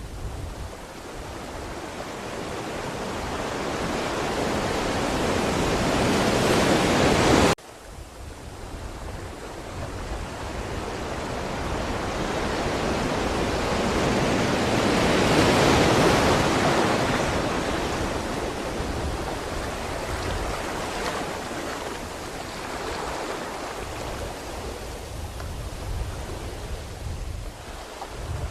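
Ocean waves washing in: a swell of surf builds and is cut off suddenly about a third of the way in, then another wave rises to a peak near the middle and slowly recedes.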